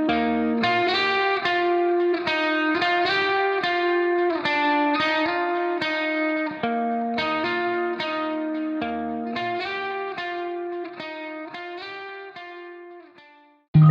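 Instrumental background music of quickly picked guitar notes. It fades away over the last few seconds, and a louder piece cuts in at the very end.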